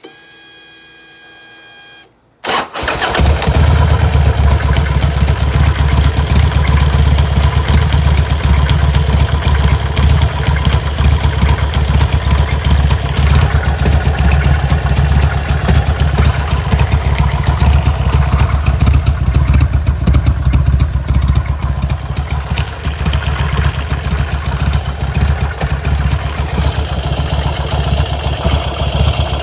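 A steady whine for about two seconds, then the Buell XB12R's air-cooled 1203 cc V-twin is started and idles with a loose, knocking beat. The owner records it for an abnormal engine noise.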